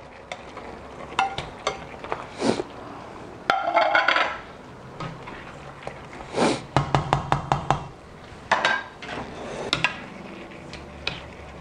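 Cookware clatter as sliced beef tongue is tipped from a glass bowl into a stainless steel pan of tomato sauce and stirred in: scattered knocks and clinks of bowl and utensil against the pan, with a quick run of taps a little past the middle.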